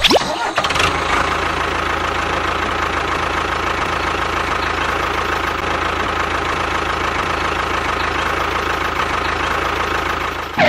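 An engine running steadily at idle with a knocking, even beat that starts suddenly and cuts off suddenly near the end.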